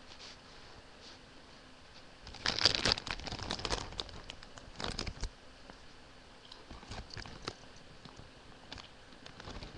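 Crinkling of a potato-chip bag being handled and crunching of chips being chewed: a dense run of crackles about two and a half seconds in, another short one about two seconds later, then scattered softer crackles.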